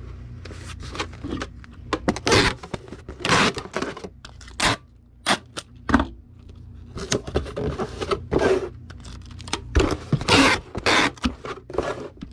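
Cardboard shipping box and packing materials being handled on a work surface: a string of irregular scrapes, rustles and light knocks.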